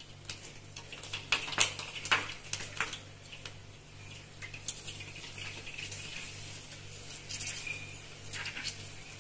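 Puri deep-frying in hot oil in an aluminium kadai: sizzling and crackling as it puffs up, with sharp clicks of a metal slotted spoon against the pan, thickest in the first few seconds.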